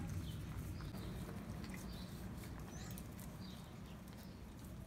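Pinscher puppies eating dry kibble from bowls: faint, scattered crunching and clicking of chewing.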